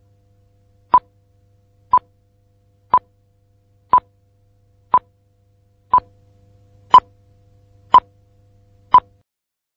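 Short electronic beeps at a steady one per second, nine in all, each the same pitch, like a countdown, over a faint low hum.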